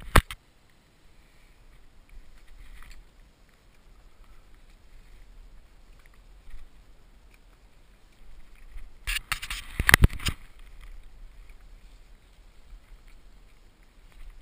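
Small wooden automaton toy being worked by hand: faint clicking and rubbing of its wooden mechanism, with a burst of loud knocks and clatter about nine seconds in. Sharp clicks at the very start and a steady low hum underneath.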